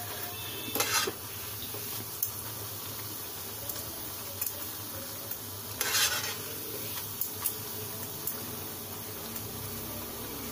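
A round slice of bread deep-frying in hot ghee, sizzling steadily, while metal tongs and a spatula clink and scrape against the pan, loudest about a second in and again around six seconds in.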